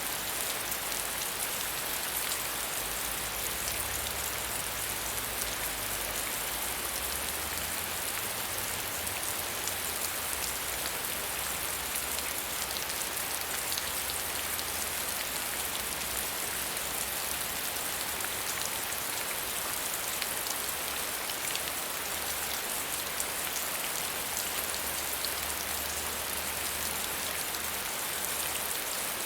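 Steady medium rainfall: a dense, even hiss of falling rain with fine patter of individual drops.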